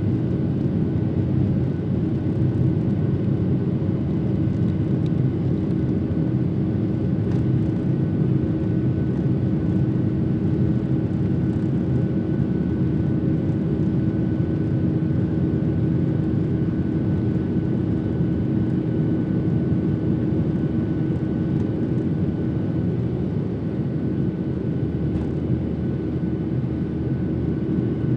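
Steady cabin drone of a Boeing 737-700 taxiing, its CFM56 jet engines running at low power, a constant hum over a deep rumble.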